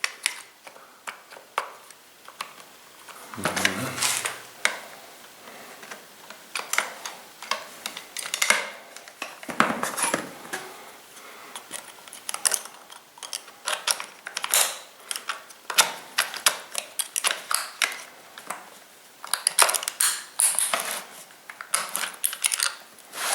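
Plastic chainsaw housing parts and a screwdriver clicking, tapping and rattling in irregular, uneven strokes as the air filter housing is pried off and its screws worked loose.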